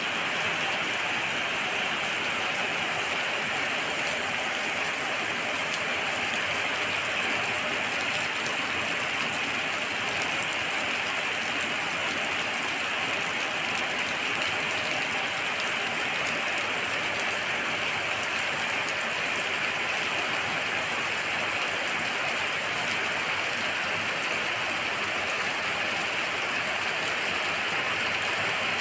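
Heavy rain pouring down in a steady, even downpour, splashing on wet ground and roofs.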